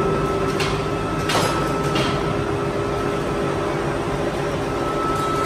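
A machine running steadily, a constant hum over a rumbling noise, with a few light clicks in the first two seconds.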